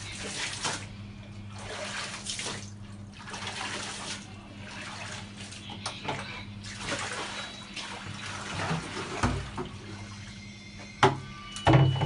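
Water sloshing and splashing in a bucket as clothes are washed by hand, in swishes about once a second, over a steady low hum. A few sharp knocks near the end.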